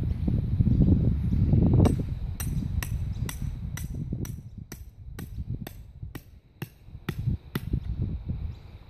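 A hammer driving a tent peg into the ground: a low rumble for about the first two seconds, then a steady run of about fifteen sharp blows, roughly three a second, which stop near the end.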